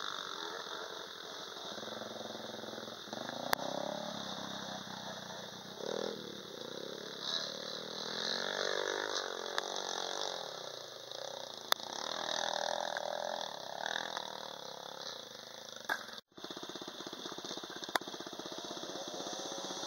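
Dirt bike engines revving as riders climb a steep grassy hill, the pitch rising and falling with the throttle. A few sharp clicks are heard.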